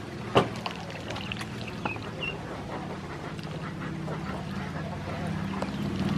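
Ducklings peeping and dabbling in a shallow basin of water, with many small splashes and bill clicks. A single sharp knock about half a second in is the loudest sound, over a steady low hum.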